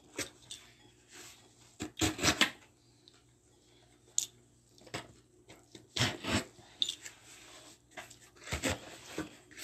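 Razor box cutter cutting and scraping along the packing tape of a cardboard shipping box, in short clusters of strokes with quieter gaps between.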